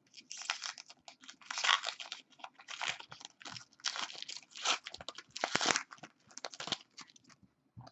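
Trading cards being handled and flipped through by hand: irregular crisp rustling and scraping, in uneven bursts.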